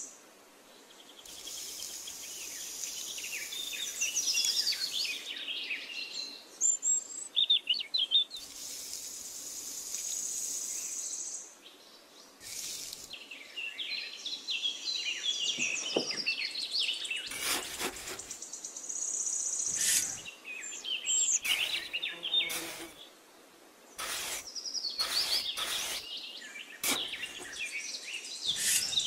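Small birds chirping and trilling over a steady high hiss, with several sharp clicks. The sound cuts out abruptly a few times, as in an edited nature track.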